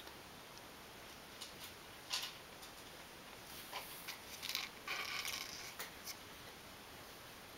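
Kittens scrabbling and tussling on a terry towel: faint scattered scratches and rustles of small claws and paws, in short bursts that are busiest between about two and six seconds in.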